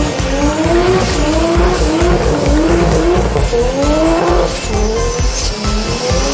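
Race-car engine sound effect: rising revs repeating about twice a second over a steady rushing noise.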